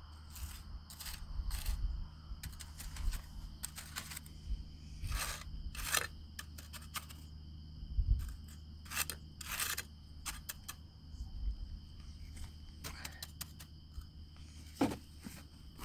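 Wet concrete mix being worked and shaped by hand into a ramp: irregular short scrapes and clicks of grit and tool against the mix, with a few louder ones about 5, 6 and 9 to 10 seconds in.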